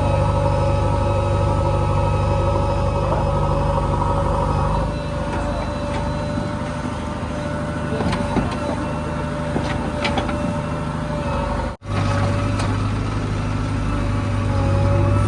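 Heavy diesel engine of earth-moving machinery running steadily, its note changing about five seconds in, with a few light knocks in the middle. The sound cuts out abruptly for an instant near the end, then the engine continues with a stronger low hum.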